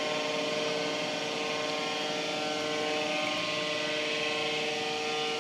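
Steady mechanical hum of the pool building's machinery: an even drone carrying several steady tones, with no splashes or voices standing out.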